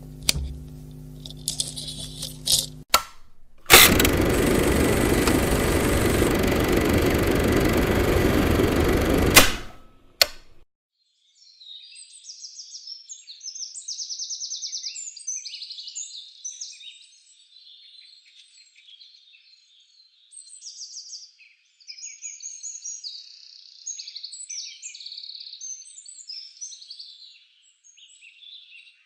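A few seconds of low steady tones, then a loud, even rushing noise from about four to nine seconds in that cuts off suddenly. After that, high chirping in quick repeated trills, like small songbirds, comes and goes.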